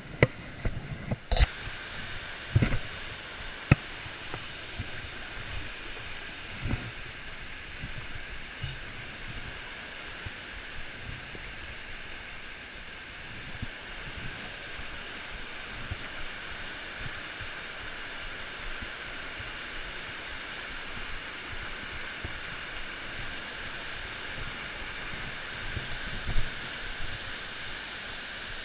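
Waterfall and the rushing stream below it, a steady hiss of falling water that comes in suddenly about a second in. A few sharp knocks in the first few seconds and once near the end.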